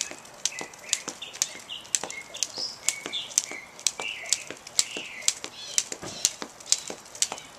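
Jump rope skipping on a concrete sidewalk: the rope slaps the ground in a steady rhythm, about two sharp slaps a second.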